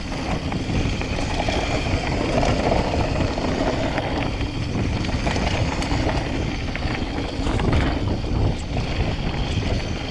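Trek Fuel full-suspension mountain bike riding down a dirt trail: steady wind rumble on the microphone over the rolling of knobby tyres, with small scattered rattles and clicks from the bike.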